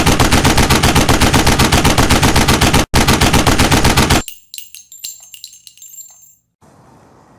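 Colour Salute firework going off: a rapid run of loud bangs, about seven a second, with a brief break just under three seconds in. The bangs stop about four seconds in, and faint crackles and pops die away after them.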